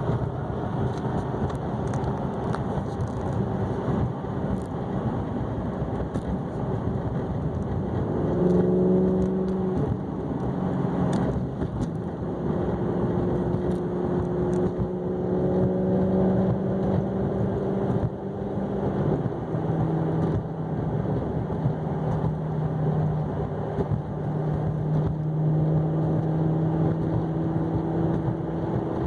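Maserati GranTurismo S's 4.7-litre V8 engine and exhaust pulling the car along, in the exhaust's normal (non-sport) mode, over steady road noise. The engine note climbs slowly under acceleration, and near the two-thirds mark it steps down in pitch at a gear change.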